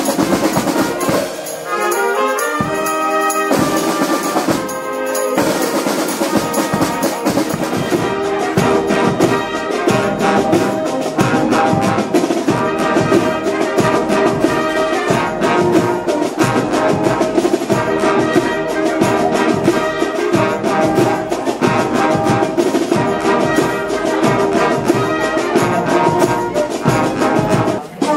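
A brass and drum band playing: trumpets, trombones and sousaphones over snare drums, the full band sounding from a few seconds in.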